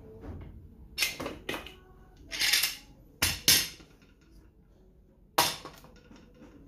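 Steel F-style bar clamps being released and pulled off a stack of plywood strips: a run of sharp metallic clatters and knocks, with a longer scraping rattle in the middle, then a single wooden knock near the end as the pieces are handled.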